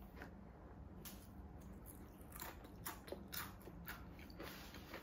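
Faint, irregular crunching of Chipotle tortilla chips being bitten and chewed, sharp crackles coming every half second or so.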